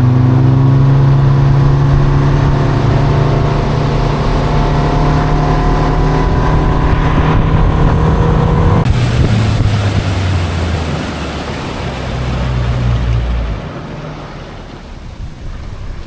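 Boat's outboard motor running under way, its pitch slowly falling as it eases off; about halfway through its higher whine cuts out, and the engine drops away near the end, leaving wind and water.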